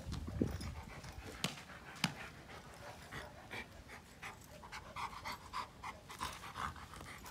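A dog panting in short, quick breaths, about three a second, most plainly in the second half. There are a few sharp clicks in the first couple of seconds.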